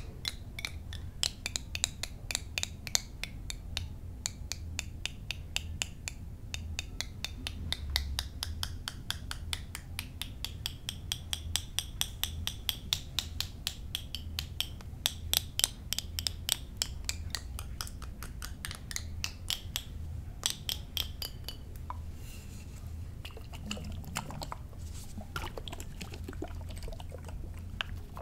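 Quick ASMR tapping on mini-bar bottles, several taps a second, with a faint high ringing tone in the middle stretch, over a low steady hum.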